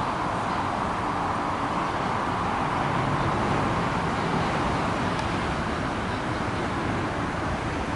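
Steady street noise, a constant rush with a low rumble underneath, from traffic on a rain-wet road.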